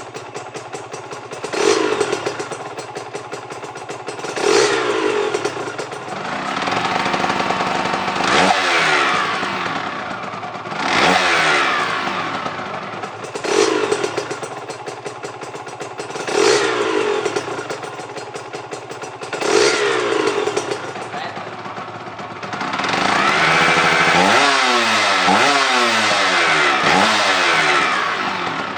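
Aprilia RS 125 two-stroke single-cylinder engine with a Giannelli aftermarket exhaust, revved in short blips about every three seconds that fall back each time. Near the end it is held at high revs for several seconds before dropping.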